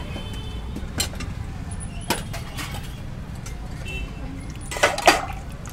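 Steel ladle clinking against steel pots while pani puri is served: single sharp clinks about a second and two seconds in, then a quick cluster of louder clinks near the end, over a steady low background rumble.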